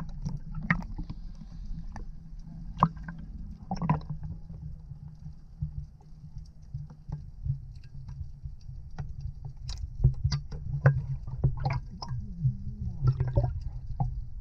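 Muffled water sound with the microphone under the surface: a steady low rumble and sloshing of moving water, broken by scattered sharp clicks and a few short splashes.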